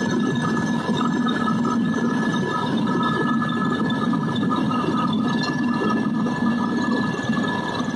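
Helicopter cabin noise in flight: the steady drone of rotor and turbine engine with a constant high whine, heard from inside the cabin.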